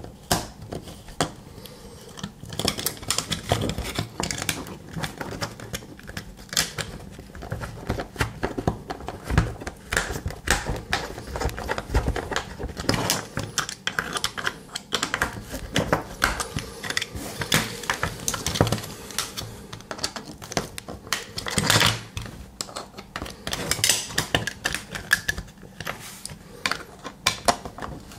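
Precision screwdriver turning small screws into the end plates of an aluminium meter case, with irregular small metallic clicks and taps as the parts are handled against a tabletop.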